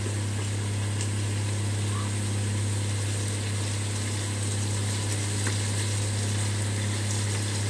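A steady low hum under a soft even hiss of peas and tomato masala frying in a kadhai.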